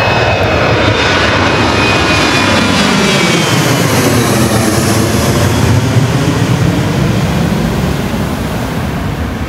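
Jet airliner passing low overhead, a loud continuous engine roar with a high whine that fades within the first couple of seconds, the rumble easing slightly near the end.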